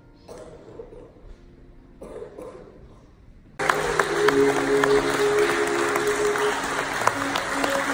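A hush with faint rustling, then about three and a half seconds in the audience breaks into loud applause in a large hall, with music of long held notes starting at the same moment.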